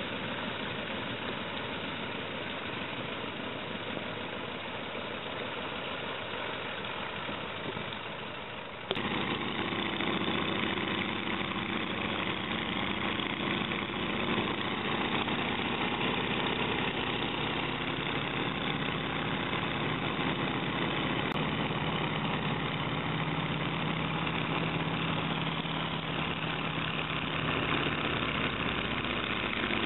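Stearman biplane's radial engine running, first heard from outside while the aircraft is on the ground. About nine seconds in, an abrupt cut brings it in from the cockpit in flight, louder and steadier.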